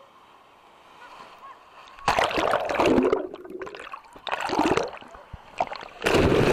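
Wave-pool wave breaking over the microphone at the water's surface: loud rushing and splashing in about three surges, starting about two seconds in, with the microphone briefly going under near the end.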